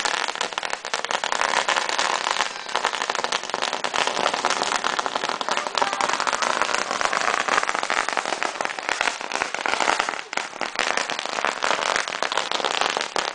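Firecrackers going off on the ground in a rapid, continuous crackle of small bangs, with a few sharper bangs near the end.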